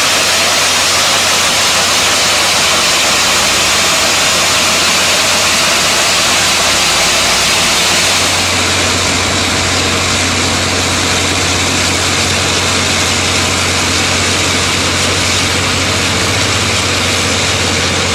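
Ultra-high-pressure water jets of a hydro scarification head blasting a concrete surface, a loud steady hiss over the hum of heavy truck engines. About eight seconds in, the hiss eases and the engine hum comes forward.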